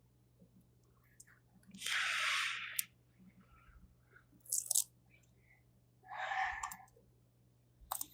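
Short crinkly, rustling handling sounds of adhesive tape being peeled and pressed into place on plastic kit parts, three separate bursts with the longest about two seconds in.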